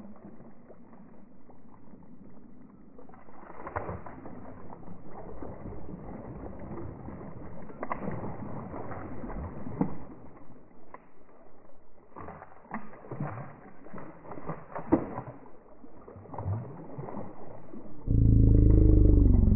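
Hooked Murray cod thrashing at the surface, with irregular splashes and sharp knocks. A loud low rumbling noise with a wavering tone starts near the end.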